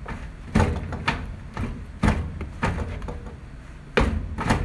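A vending machine cooling deck being shoved into its bay with the feet: a run of thumps and knocks, about one every half second, over a low scraping rumble as the unit shimmies into its tight gasket seal.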